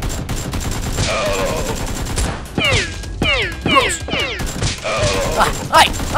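Rapid gunfire sound effects, a sustained volley of shots, standing in for Nerf blasters being fired. In the middle comes a run of four or five falling whistle-like sweeps, and near the end a short shout.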